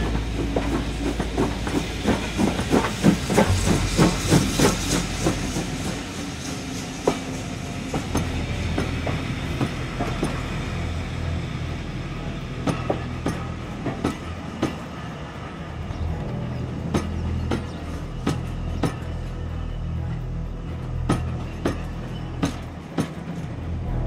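Train wheels clicking over rail joints as a train runs along the track, over a steady low rumble. The clicks come thick and fast for the first few seconds, then thin out to scattered single clicks.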